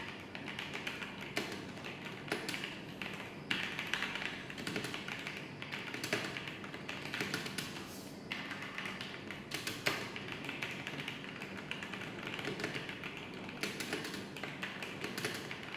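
Typing on a Leaven K660 mechanical keyboard fitted with linear red switches: an uneven run of quick key clicks, with a few louder strokes now and then.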